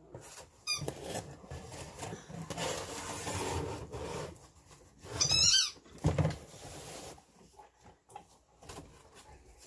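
Items being handled with a rustling sound, while dogs at play make high-pitched squeaks, a quick few about a second in and a louder run of squeaks about five seconds in, followed by a soft thump.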